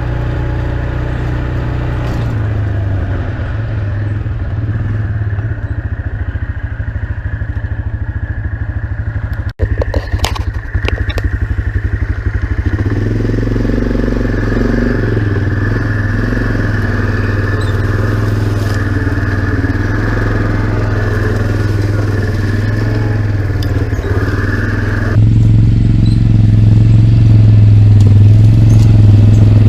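A motor vehicle's engine running steadily as it drives, with some rattling; it gets suddenly louder about 25 seconds in.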